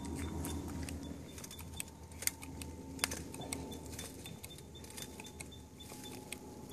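Hydraulic pull-tester rig loading a fire-damaged, Megapoxy-glued climbing bolt in sandstone, past about 16 kilonewtons. Scattered sharp metallic clicks and ticks come from the hand pump, chain and bolt under load, with a couple of louder clicks around two and three seconds in.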